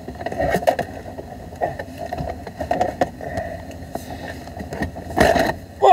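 Car stereo head unit being fitted back into the dashboard console by hand: scattered plastic clicks, knocks and rubbing, with a louder scrape about five seconds in.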